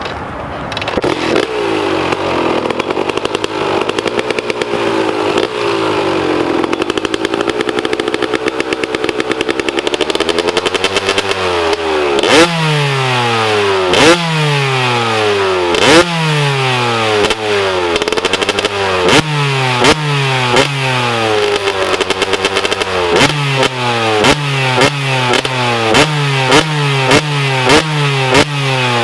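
KTM EXC 300 two-stroke engine through an FMF Shorty silencer, running with an uneven, wavering note for the first ten seconds or so, then revved hard over and over: each rev rises and drops back with a sharp crack at its peak, the revs coming quicker toward the end.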